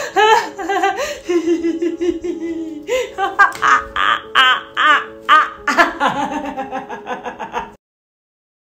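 A woman laughing loudly at length in a string of short, high bursts. The laughter cuts off abruptly near the end, leaving dead silence.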